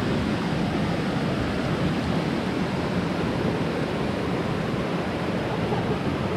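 River water rushing steadily over rocks, an even unbroken noise.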